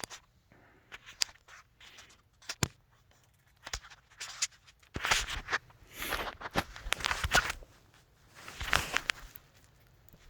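Hard plastic being ripped and scraped by hand: irregular sharp snaps and several rasping scrapes as small edges are torn off a plastic part.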